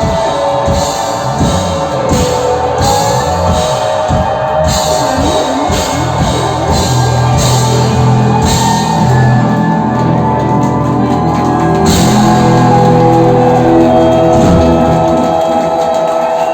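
Live rock band playing, with drums and guitars, ending on a long held chord that dies away near the end.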